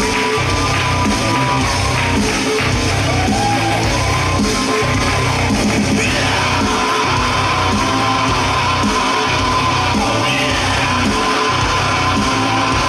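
Loud heavy rock music: sung and yelled vocals holding long notes over electric guitar and a steady beat.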